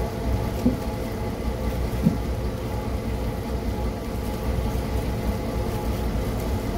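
Boat engine idling steadily, with two light knocks, one under a second in and one about two seconds in.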